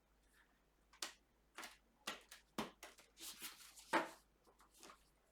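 Tarot or oracle cards being handled: a handful of soft taps and clicks with a brief rustle, the loudest tap about four seconds in.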